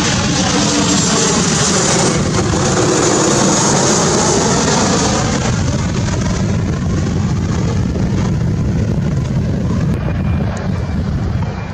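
Jet airliner flying past: a loud, steady rushing roar whose tone sweeps as the aircraft passes, peaking about four seconds in and easing off a little after.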